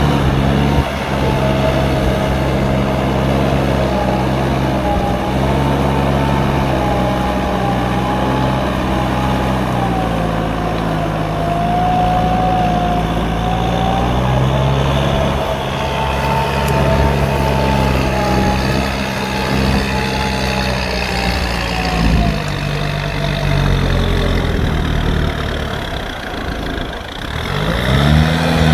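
Kubota farm tractor's diesel engine running hard under load as it churns through deep paddy mud, its pitch rising and falling. Near the end the engine drops off briefly, then revs back up.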